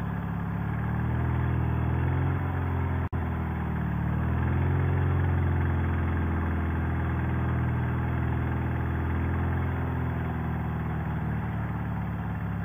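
Sidecar motorcycle engine running at low speed in stop-and-go traffic. Its pitch dips and then rises a little as the throttle is eased, then slowly settles. The sound cuts out for an instant about three seconds in.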